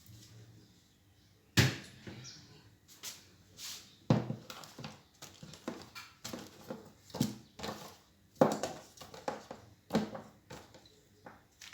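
Food containers and items being handled and set down while a refrigerator is emptied and cleaned: an irregular run of knocks, taps and short clatters.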